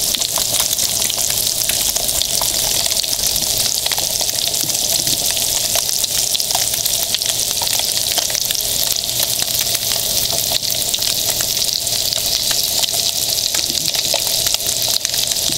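Yellowtail snapper fillets sizzling in hot olive oil in a frying pan: a steady, dense hiss peppered with fine crackles and pops of spattering oil.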